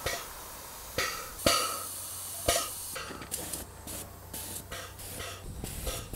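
Airless paint sprayer gun hissing as its trigger is pulled. A few strong bursts start abruptly in the first half, then comes a quick run of short spray bursts in the second half.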